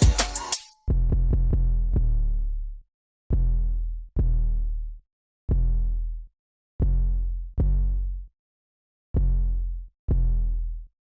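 A hip-hop beat cuts off right at the start, then about nine separate 808 bass hits sound one at a time, each a click followed by a deep held boom lasting up to a couple of seconds, with silence between them.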